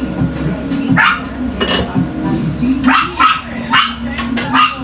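A dog barking: a run of about eight short, sharp yaps, coming closer together in the second half, over a steady low hum.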